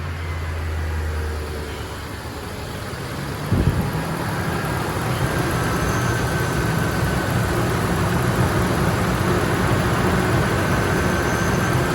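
1998 Ford F-150's 4.6-litre V8 engine running on freshly changed oil after an engine flush. It catches with a sudden loud burst about three and a half seconds in and then idles steadily, run to check whether its startup tick is gone.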